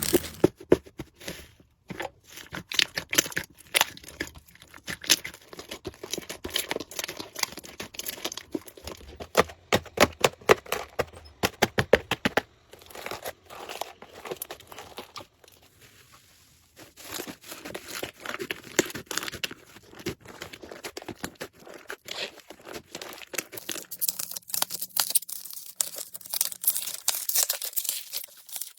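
Slime being squeezed, pressed and stretched by hand, giving a dense run of irregular sharp clicks and pops, with a short lull about halfway through.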